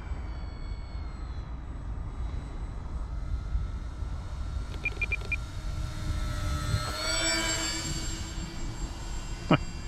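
Twin electric motors and propellers of an RC Grumman HU-16 Albatross flying-boat model whining in flight, growing louder and shifting in pitch as it makes a low pass about seven seconds in, over a steady rumble of wind on the microphone.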